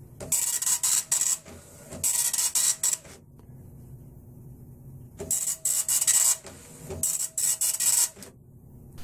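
Panasonic dot matrix printer printing lines of text on continuous-feed paper: rapid buzzing bursts of the print head in two pairs, with a quiet pause of about two seconds in the middle.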